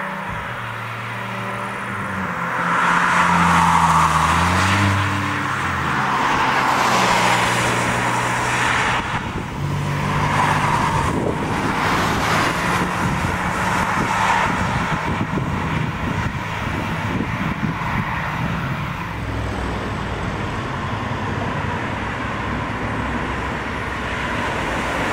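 Cars driving past on a country road, engine and tyre noise swelling and fading several times as each goes by.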